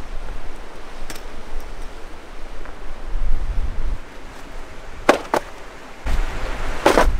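Steady rush of wind and a running creek, with wind buffeting the microphone. About five seconds in come two sharp knocks, and near the end a louder rustling clatter.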